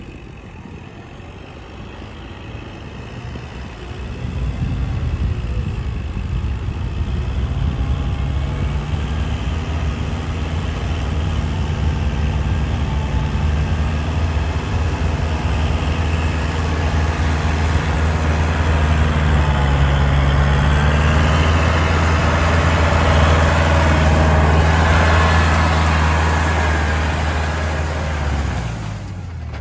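Kubota tractor's diesel engine running under load while its rotary tiller churns wet paddy mud. It grows louder about four seconds in as the tractor comes close and passes, then drops off near the end.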